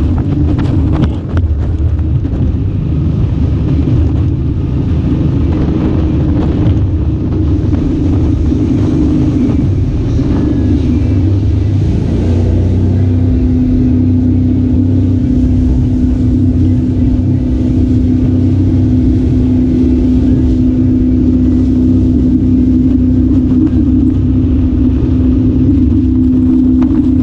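An engine running steadily under way, a loud low rumble with a humming tone that drops slightly in pitch and holds steady from about twelve seconds in.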